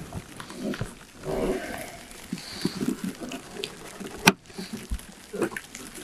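Straight-jaw roofing pliers bending the edge of sheet-metal chimney flashing: scattered small creaks and scrapes of the metal being worked, with one sharp click about four seconds in.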